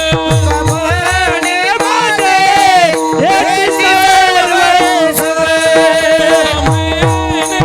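Devotional kirtan singing: a voice carrying a long, gliding melodic phrase over steady sustained accompanying notes, typical of a harmonium. Fast drum strokes play at the start and return near the end.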